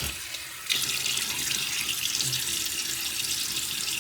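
Sink tap running, the stream weaker at first and then strong and steady from just under a second in.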